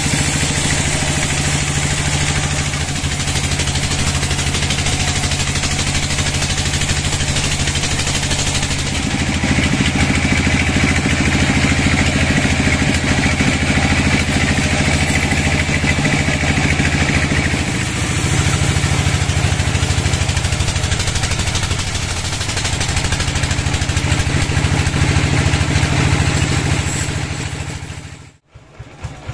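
Band sawmill running steadily, a low engine-like drone with rattle, as its blade cuts lengthwise through a large log; a higher hiss rides on top for a stretch in the middle. The sound cuts off suddenly near the end.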